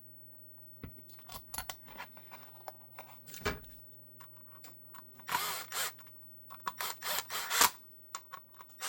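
Small power driver running in two short bursts, about five and seven seconds in, driving screws into a Kydex holster's hardware, with small clicks and taps of the parts being handled in between.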